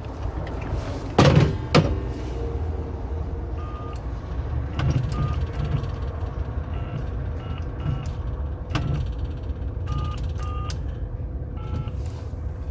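Payphone touch-tone keypad being dialed: about ten short beeps at irregular intervals as the keys are pressed, over a faint steady tone and low street rumble. A loud clunk of handling comes about a second in.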